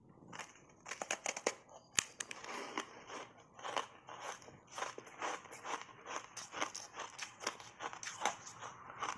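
Block ice coated in matcha powder being bitten and chewed: quick, crisp crunches and cracks of ice breaking between the teeth, with a sharp crack about two seconds in.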